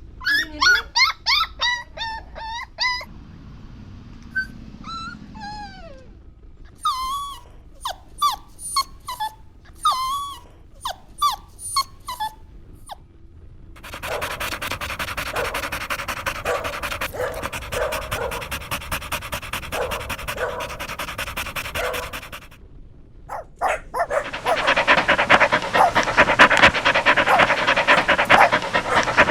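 Golden retriever puppies whimpering and yipping in runs of short, high calls that drop in pitch. From about halfway they switch to fast, steady panting, which stops briefly and then comes back louder near the end.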